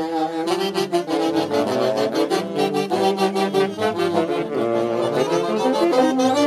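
A live folk band playing a lively dance tune with a steady beat.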